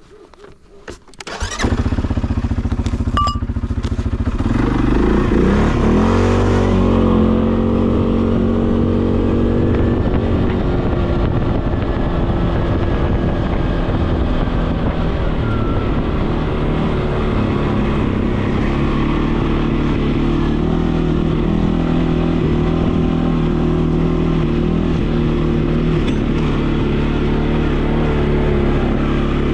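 A vehicle engine starting about a second and a half in, after a few clicks, rising in pitch as it revs a few seconds later and then running steadily.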